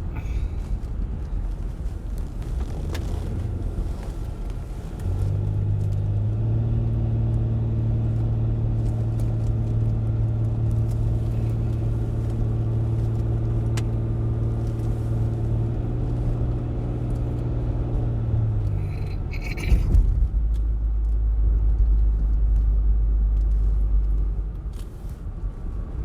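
Car engine and road noise heard from inside the cabin on a mountain road. A steady low engine drone starts a few seconds in and holds for about fourteen seconds. A deep low rumble follows near the end, then eases off.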